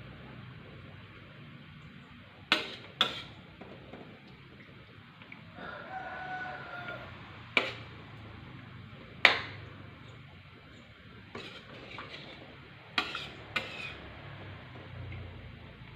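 A metal spoon or ladle knocks against a cooking pot in sharp clanks while stirring: twice a little under 3 s in, once about 7.5 s and once about 9 s in, and twice again near 13 s. A rooster crows briefly in the background about 6 s in.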